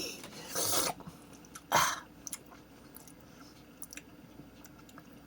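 A person chewing a Chips Ahoy chocolate chip cookie. There are two short, louder noisy bursts in the first two seconds, then faint scattered mouth clicks.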